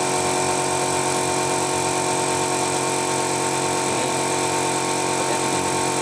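Steady machine hum, a constant drone holding several fixed pitches without change.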